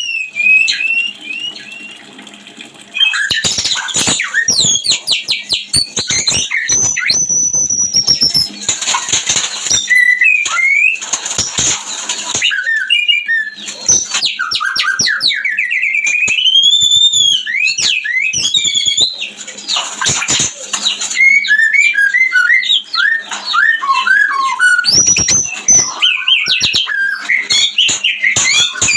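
White-rumped shama (murai batu) in breeding condition singing a loud, varied song of whistles, rising and falling glides, fast chattering trills and harsh notes. It starts in earnest about three seconds in.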